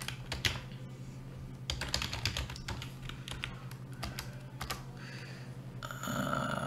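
Typing on a computer keyboard: irregular key clicks as a line of code is typed.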